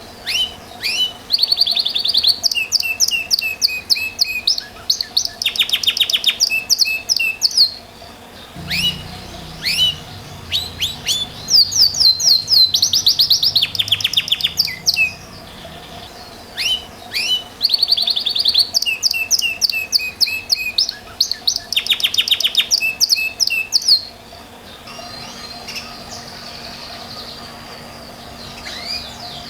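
Belgian Bossu canary singing in three long song bouts of rapid trills and sweeping high whistled notes, each about seven seconds, with short pauses between them. The song stops about five seconds before the end.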